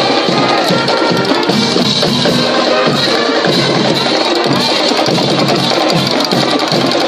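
High school marching band playing in the stands: brass with drums keeping a steady beat.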